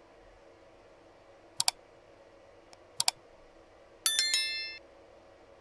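Subscribe-button animation sound effects: two quick double mouse clicks about a second and a half apart, then a bright bell chime of several tones that rings for under a second.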